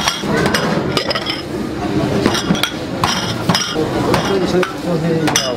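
Soup bowls clinking as they are lifted off stacks and set down on a steel counter: a run of sharp, ringing clinks, about half a dozen, over background voices.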